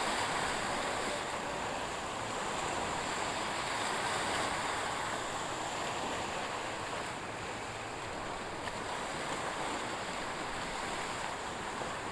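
Steady wash of sea waves mixed with wind, an even hiss that barely rises or falls.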